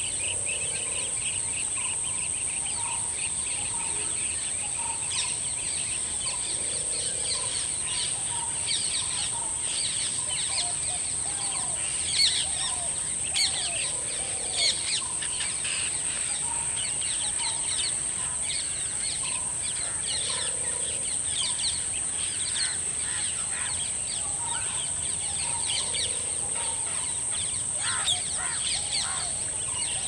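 Birds chirping and calling by a lake, with a soft lower call repeating about every six seconds, all over a steady high-pitched insect drone.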